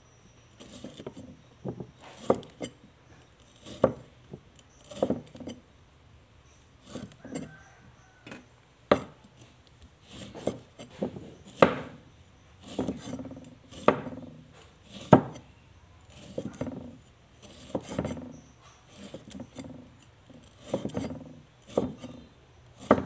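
A cleaver chopping a bumpy green fruit on a round wooden chopping board. The sharp knocks come roughly once a second at an uneven pace, some louder than others.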